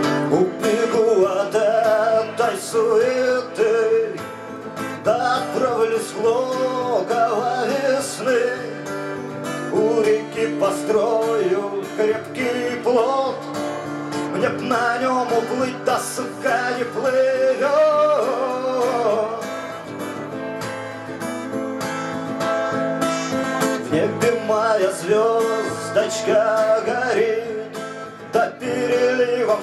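A man singing while strumming an acoustic guitar, in a continuous live song.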